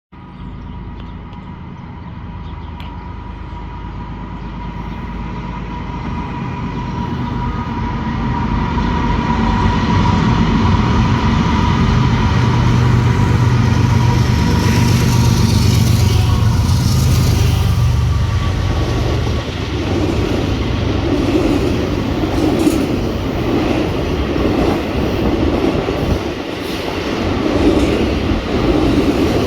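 Diesel train approaching and passing. The locomotive's engine rumble builds to its loudest about halfway through, with a steady thin whine early on. The cars that follow clatter over the rail joints in an even rhythm.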